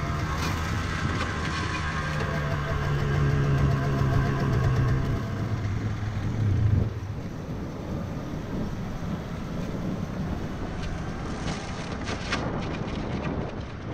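1991 Yamaha TZR125's single-cylinder two-stroke engine running steadily on the move. About seven seconds in its note drops away sharply, leaving a quieter, rougher sound of the bike rolling.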